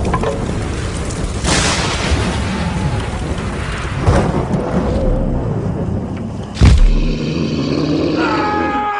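Horror film trailer sound design: a dense noisy bed struck by three heavy booming hits, the loudest about two-thirds of the way in, then held tones gliding slowly downward near the end.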